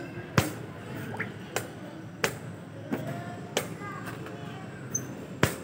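Quick sharp knocks of blitz chess play: plastic chess pieces set down on the board and the chess clock's button slapped, about seven in five seconds at an uneven pace.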